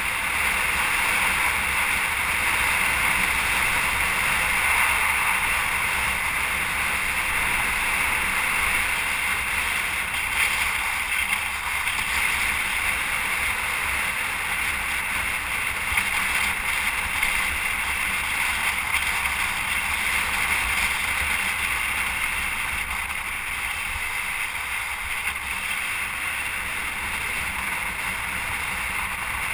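Steady rushing wind and movement noise with a low rumble underneath, easing slightly over the second half.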